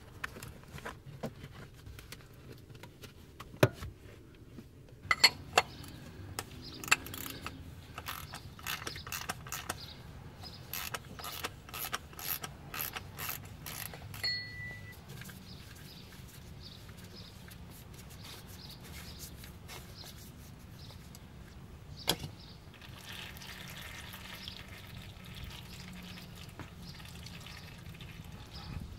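Ratchet wrench clicking in repeated short strokes as it loosens the Porsche Cayman S's canister oil filter housing. In the later part, oil dribbles down from the open filter housing in a soft, steady trickle.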